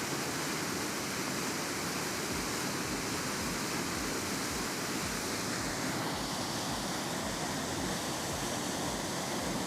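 Steady rush of a waterfall of about 20 to 25 feet, a continuous even roar of falling water.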